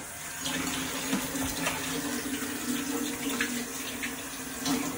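Kitchen tap running steadily into a sink, a rush of water over a low hum, with a few light knocks.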